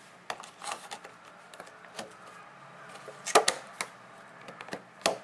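Clear plastic lid being fitted onto a plastic seedling box: a scatter of light plastic clicks and taps, with the sharpest snaps about three and a half seconds in and again near the end.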